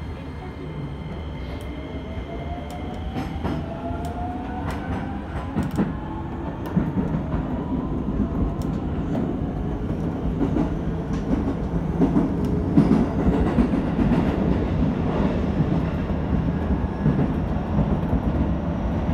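Keisei 3000-series electric train heard from inside the cab as it gathers speed. The motor whine rises in pitch over a rumble of wheels on rail that grows steadily louder, with sharp clicks as the wheels pass over rail joints.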